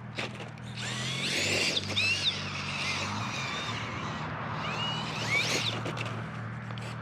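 Electric drivetrain of a 1/10 scale RC rock crawler whirring as it is throttled over rocks, the motor and gearbox whining up and down in pitch in short spurts, over a steady low hum.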